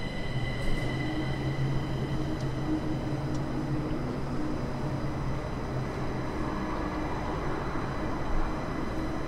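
Berlin U-Bahn train crossing the elevated track of the Oberbaum Bridge: a steady low hum of the running train, giving way past the middle to a broader rushing rail noise.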